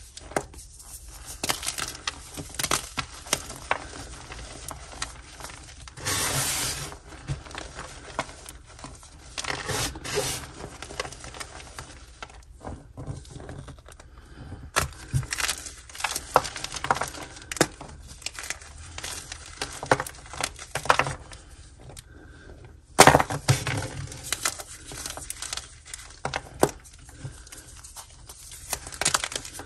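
Blocks of gym chalk dusted in coloured powder being squeezed and crushed by hand: dry crunching and crumbling with many sharp snaps as the blocks break apart. One crack about three-quarters of the way through is the loudest.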